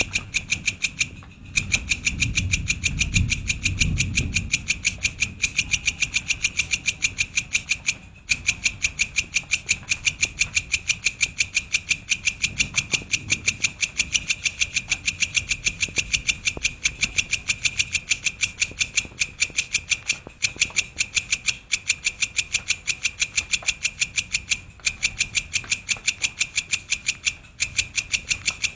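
Songbird repeating one sharp, high note in a fast, steady run of several notes a second, with a few brief breaks. This is the rapid-fire 'tembakan' phrasing prized in songbird master recordings.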